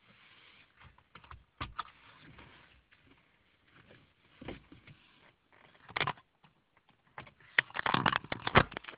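Irregular taps and knocks, a few scattered ones and then a dense cluster near the end, which is the loudest part, over a faint hiss.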